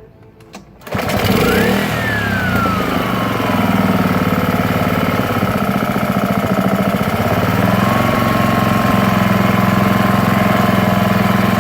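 Honda Harmony II walk-behind mower's small single-cylinder engine started on the first pull of the recoil cord, catching about a second in and then running steadily, its cleaned carburetor now working. A whistling tone rises and then falls soon after it catches.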